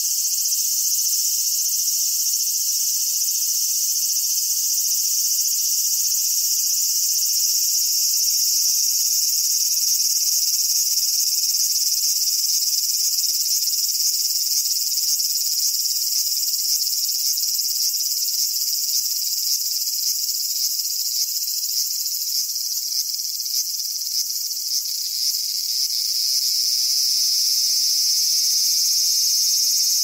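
Cicadas buzzing steadily in a high-pitched chorus, with a faint pulsing through the middle.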